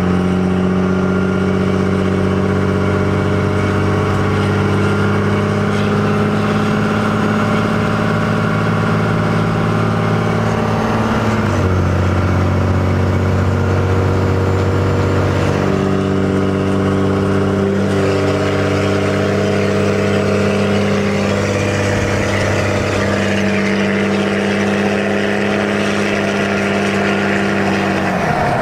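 Cummins diesel pickup engine pulling under load while towing a loaded trailer, heard from inside the cab. Its steady drone steps in pitch a few times, about a third of the way in, about halfway and again later.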